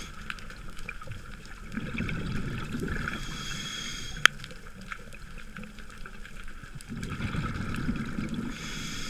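Scuba diver breathing underwater through a regulator: exhaled bubbles rumble twice, about two and seven seconds in, and a hissing inhalation between them ends in a sharp click. Another inhalation hiss begins near the end.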